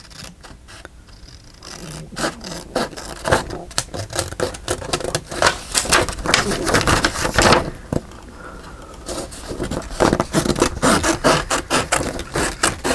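Scissors cutting around a paper image, many quick snips in rapid runs, with a short pause about eight seconds in.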